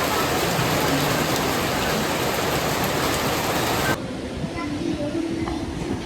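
Heavy rain falling in a steady hiss, cut off abruptly about four seconds in, leaving a much quieter background with a few faint voice sounds.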